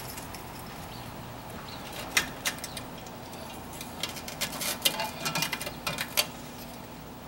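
Small sharp clicks and taps of a repair clip being worked into a jalousie window's frame by hand. There are a few about two seconds in and a quicker cluster from about four to six seconds in.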